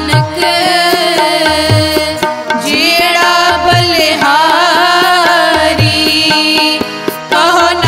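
Sikh Gurbani kirtan music: tabla strokes, with deep bass hits every second or so, under a sustained melodic line.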